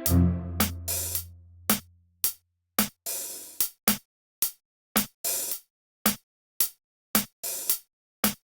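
Electronic music made in the iPhone GarageBand app: a low bass note fades out over the first two seconds, then a drum-machine beat plays on its own, short ticks alternating with longer snare-like hits at an even pace of about two a second.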